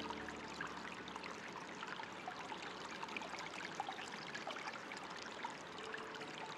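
Running water trickling and splashing steadily, a continuous patter of small drops and flows.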